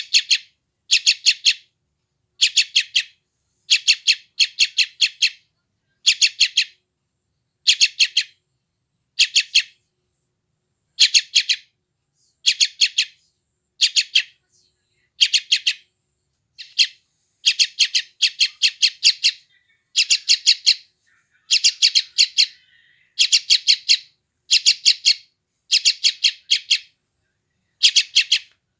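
Young yellow-vented bulbul (trucukan) giving begging calls: short bursts of rapid chattering notes, repeated about once a second and sometimes doubled, with silence between the bursts.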